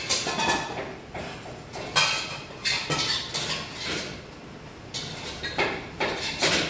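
Irregular kitchen handling sounds: a string of short knocks, rustles and light clatter, about a dozen over several seconds, as stuffed pork belly is rolled up on a plastic cutting board on a stainless-steel counter.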